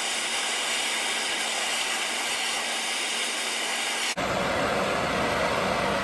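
Handheld gas torch burning with a steady hissing flame, heating a seized wheel bearing race on a steel spindle to free it. The sound changes abruptly about four seconds in, becoming lower and fuller.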